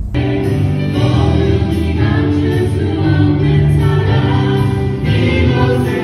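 Background music: a choir singing in a gospel style.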